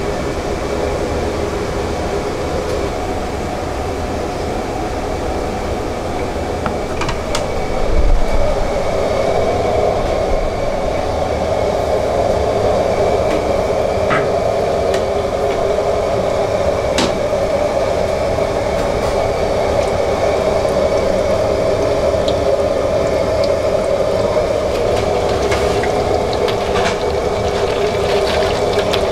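A starch-coated mullet fillet deep-frying in a wok of hot oil: a steady sizzle over the constant roar of a commercial kitchen stove. It swells about eight seconds in, as the fish goes into the oil.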